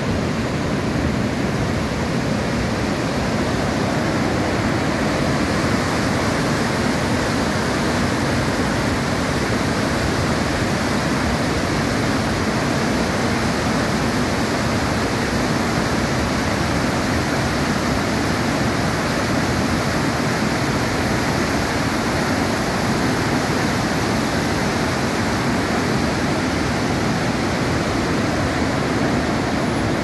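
The Bad Gastein waterfall, a steep mountain cascade, rushing steadily at full flow: a loud, even wash of white water with no break.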